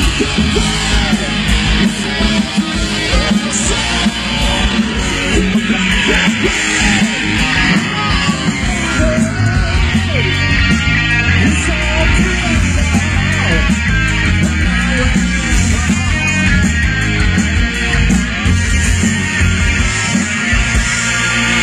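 Live rock band playing loudly through a PA system, with electric guitars, bass and drums and some singing, heard from among the crowd.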